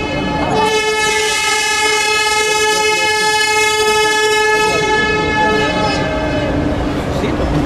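Cruise ship's typhoon horn sounding long, steady blasts as the ship leaves port, several tones overlapping into a chord. The higher tones stop about five to six seconds in while a lower one holds on.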